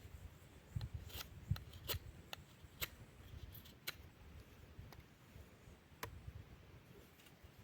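Knife blade carving wood: irregular scraping strokes with short sharp clicks, about one every half second at first and sparser after about four seconds in.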